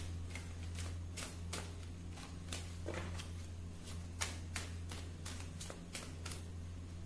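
A tarot deck being shuffled by hand: a quick string of crisp card slaps and clicks, about three a second, over a steady low hum.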